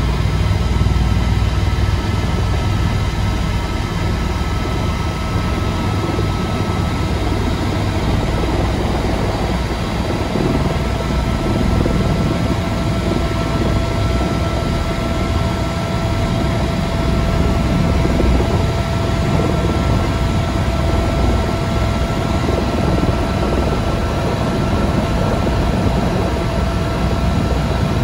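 Tour helicopter heard from inside the cabin as it comes in to land: a steady, loud rotor and turbine drone with a thin steady whine running through it.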